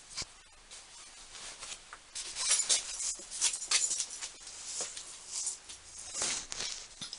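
Irregular scraping, rustling and light clicks of small metal tools and vise parts being handled on a workbench.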